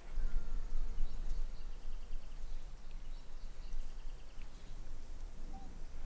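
Quiet outdoor meadow ambience: a steady low rumble under faint trains of rapid, high chirps a couple of times in the middle, with a short high note near the end.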